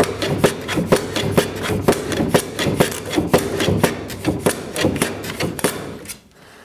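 Metal hand plane run back and forth on a wooden shooting board, shaving the end grain of a slat square: quick repeated strokes, about three a second, that stop about six seconds in.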